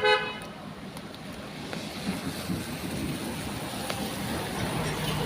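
A short horn blast right at the start, then a passing road vehicle's engine hum and tyre noise under a steady hiss.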